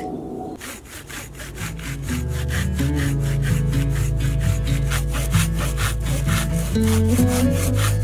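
A small hand saw cutting through a dead log in quick, even strokes. Background music comes in under it about two seconds in.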